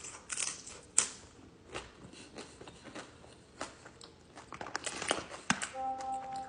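Close-up chewing and biting of a burrito, heard as irregular wet mouth clicks.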